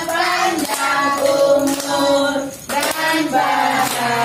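Voices singing a birthday song together, with hands clapping along.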